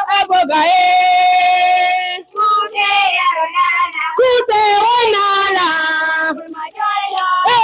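High voices singing, holding long steady notes with short breaks between phrases.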